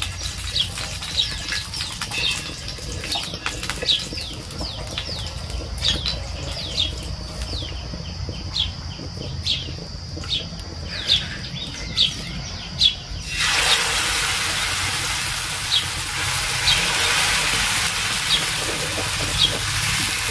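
Small birds chirping, short repeated chirps over a low steady hum. About two-thirds of the way in, semolina batter ladled onto a hot, oiled tawa starts a loud, steady sizzle that lasts to the end, with the chirps still heard above it.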